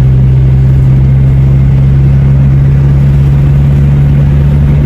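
Car engine and road noise heard from inside the moving car's cabin at steady cruising speed: a constant low hum that holds one pitch.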